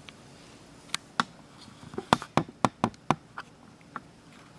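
Light clicks of fingers handling the tape and the small guide plates of a Smith Corona Electra 120 typewriter: two single clicks about a second in, a quick run of about eight clicks around the middle, then a couple more near the end.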